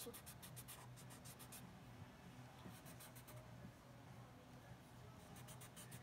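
Felt-tip marker writing on cardboard: faint scratchy strokes in quick short runs, one at the start, another around three seconds in and a third near the end.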